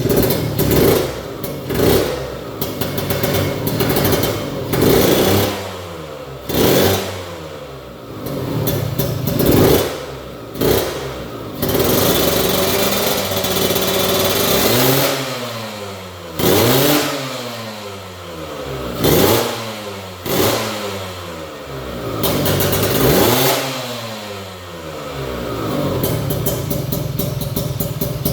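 Kawasaki Ninja 150 RR's two-stroke single-cylinder engine being revved in about ten blips, each falling back toward idle, then running more steadily near the end.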